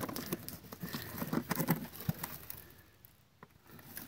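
A hand fumbling with a dirt-caked metal lunch box and its plastic latch: irregular clicks, knocks and gritty scraping, quieter near the end.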